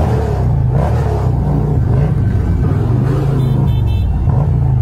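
Motorcycle engine running at low speed as the bike rolls along, its pitch rising and then falling once about halfway through.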